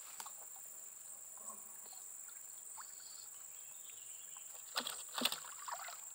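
Steady high-pitched drone of insects, with a couple of sharp knocks about five seconds in.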